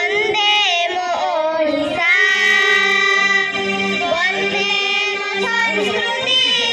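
A woman singing a slow, ornamented melody with wavering, gliding notes, over a steady accompaniment of held low notes.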